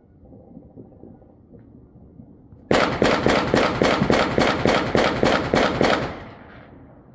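A rapid, evenly spaced string of about a dozen loud sharp bangs, about four a second, lasting some three seconds, then a rolling echo that fades away.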